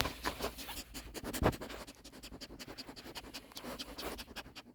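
A dog moving about close up: soft irregular scratching and rustling, with one sharper knock about a second and a half in.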